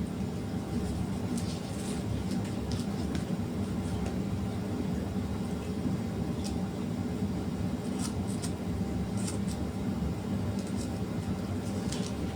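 A steady low rumbling hum with a couple of faint steady tones in it, and scattered faint light ticks and rustles over it.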